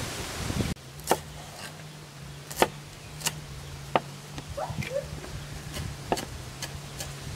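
Cleaver chopping green onions and garlic on a round wooden chopping board: about seven sharp, irregularly spaced knocks over a faint steady low hum. It opens with a brief rustling noise that cuts off abruptly under a second in.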